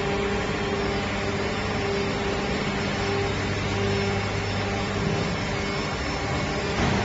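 Injection molding machinery running: a steady mechanical hum and whir with a held tone and a lower drone, and a brief louder knock near the end.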